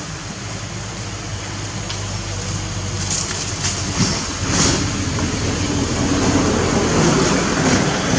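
A motor vehicle's engine running, growing steadily louder as it approaches.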